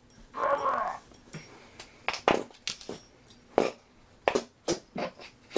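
A dog sniffing in short quick snuffles, some close together and some spaced out. The sniffing comes after a rougher noise lasting about half a second near the start.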